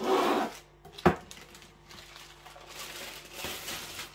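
Plastic packet of brick pastry sheets crinkling and rustling as it is handled and opened, with a sharp click about a second in.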